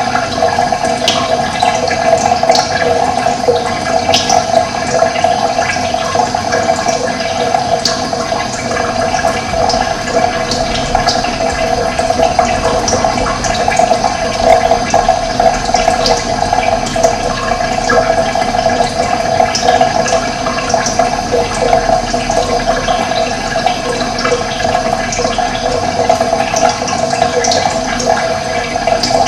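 Running water flowing steadily, with birds chirping briefly now and then.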